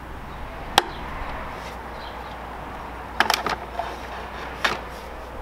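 Sharp plastic clicks from a push-pin fastener and side fairing panel of a 2006 Yamaha R6 being worked loose by hand: one click about a second in, a quick cluster of clicks a little past three seconds, and one more near the end.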